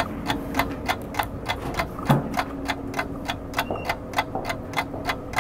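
Even, clock-like ticking, about three ticks a second, over a faint steady hum, with a soft low thump about two seconds in.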